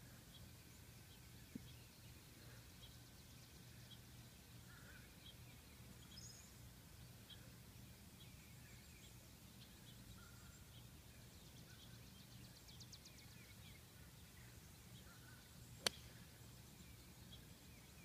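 Faint bird chirps over quiet outdoor air, then one sharp click about two seconds before the end: a golf club striking the ball on a tee shot.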